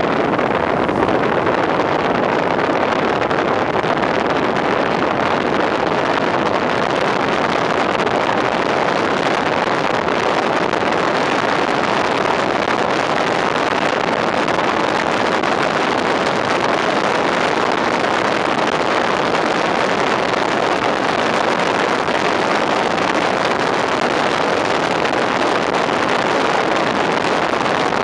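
Steady rush of wind and road noise from an FPT fire pumper driving at speed, picked up by a microphone mounted outside the cab.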